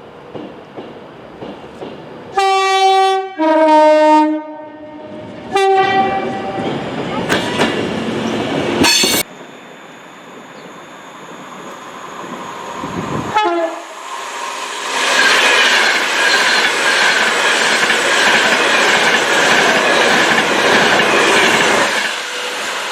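Two-tone horn of a British express passenger train, a Voyager or Class 390 Pendolino, sounding a high note then a lower note, then a short high note. Trains passing at speed with a loud rushing, clattering wheel noise; after an abrupt break, another brief horn call and a second long pass.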